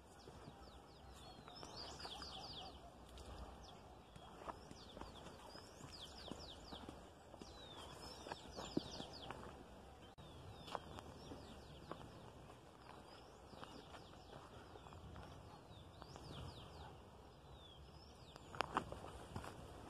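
Birds singing in quick runs of high, falling notes, repeated every second or two. Underneath, footsteps on a dirt and stone path, with a few sharp clicks, the loudest about nine seconds in and again near the end.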